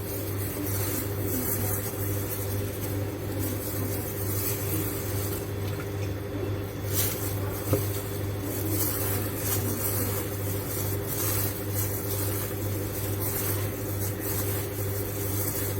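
A steady low machine hum with a faint even hiss over it, and a single light click about eight seconds in.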